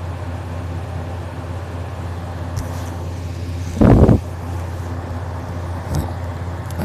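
A man snoring in deep sleep, with one loud, short snore about four seconds in, over a steady low hum.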